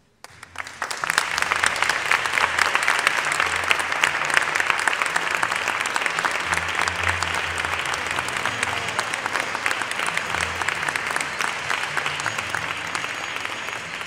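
Theatre audience applauding: the clapping breaks out abruptly about half a second in and goes on steadily, easing off slightly toward the end.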